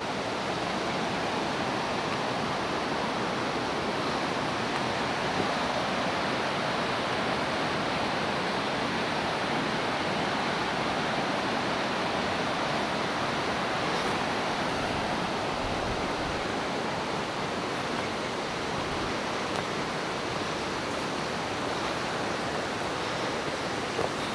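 Steady rushing of fast-flowing water, like a mountain stream or cascade, an even noise that holds without change.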